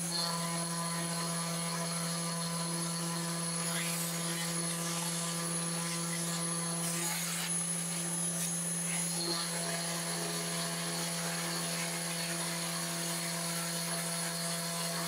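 Desktop CNC router spindle running and milling a groove in a wooden board with a small end mill: a steady hum with a constant high whine, rougher and noisier for a few seconds near the middle.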